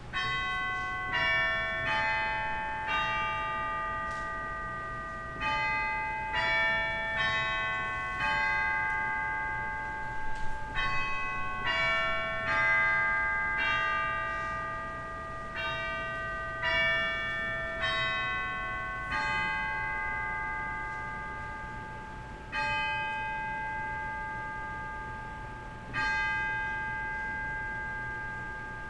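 Church bells or chimes playing a slow melody, one struck note at a time, each note ringing on and fading. After about nineteen seconds the tune gives way to single strokes a few seconds apart.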